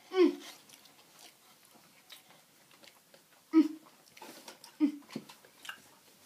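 A person chewing a large mouthful of burger, with short muffled closed-mouth hums of enjoyment, 'mm', each dropping in pitch: one right at the start and a few more from about three and a half seconds in. Faint wet chewing sounds lie between them.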